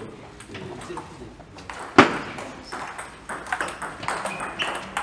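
Table tennis ball clicking off the bats and the table during a doubles rally, with one much louder sharp crack about two seconds in.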